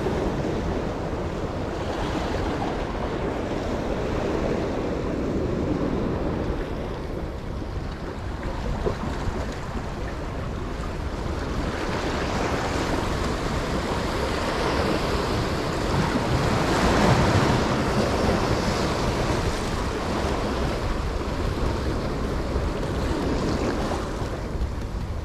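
Ocean surf washing and breaking against jetty rocks, with wind buffeting the microphone. The wash swells louder about halfway through, then eases off near the end.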